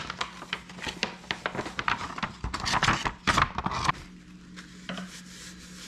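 Wide PVC heat-shrink tubing crinkling and rustling as it is pulled over a battery pack. The sound is loudest from about two and a half to four seconds in, then fades to a faint steady hum.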